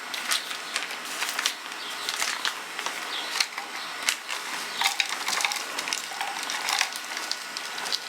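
Potting mix with orchid bark being scooped and handled: a crackling rustle with many small irregular clicks.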